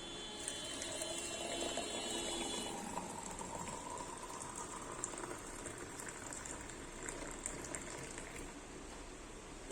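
Liquid being poured into a cup, the pour's pitch rising slowly as the cup fills.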